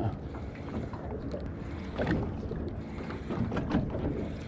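Water lapping and sloshing against a small fishing boat's hull, with wind on the microphone and a few short knocks, the clearest about two seconds in and near four seconds in.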